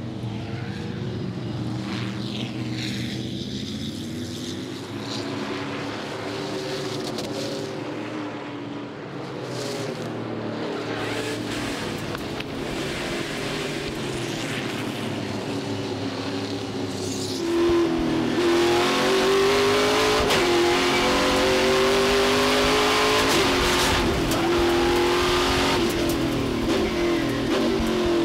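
V8 stock-car-style race car engines revving and passing at speed, with pitch rising and falling through gear changes. About two-thirds in, one engine becomes closer and louder, revving up and down.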